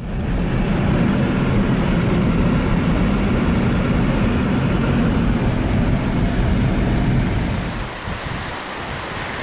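Car tyres running over the grooves of a melody road, giving a low hummed tune under loud, steady road noise, which eases slightly near the end.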